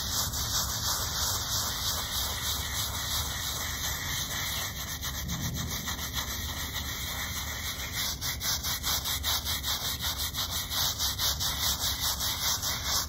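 A hand-held scrub brush scrubbing the face of an old stone headstone with rapid, rhythmic back-and-forth strokes.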